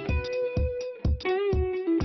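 Background music: guitar-led track with a steady beat.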